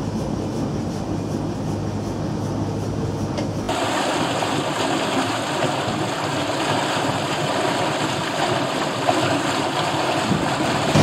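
Steamboat underway: a steady low machinery hum for the first few seconds, then after a sudden cut a steady rushing of water streaming past the hull.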